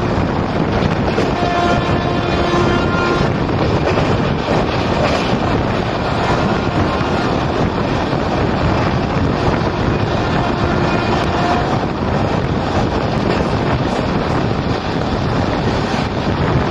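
Wind rushing over the microphone with the steady running noise of a Humsafar Express passenger train at full speed, heard from aboard one of its coaches. A faint steady tone with overtones sounds over it for about the first three seconds.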